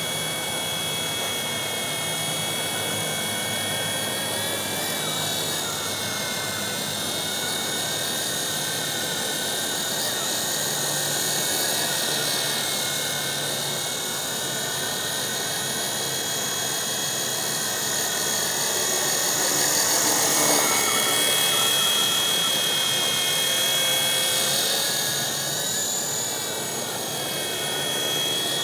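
A WLToys V915 scale RC helicopter, modded with an Esky 370 motor, runs with a steady high electric whine over a whirring rotor hum. The whine shifts a little in pitch as the throttle changes, and is loudest about two-thirds of the way through.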